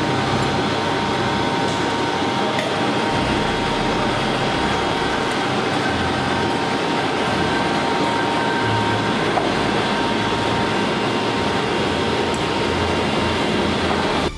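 Olive oil mill machinery running with a steady mechanical drone and a faint steady whine.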